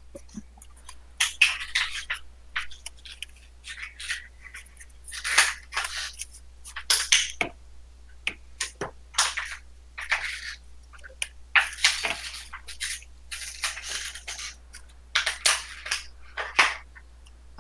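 A Magic: The Gathering deck being shuffled by hand: an irregular string of short rustling, riffling bursts of cards, one or two a second.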